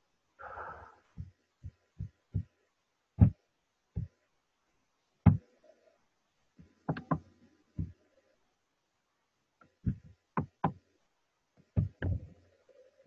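A string of sharp knocks and taps at irregular spacing, some close together in pairs, with a short scrape about half a second in.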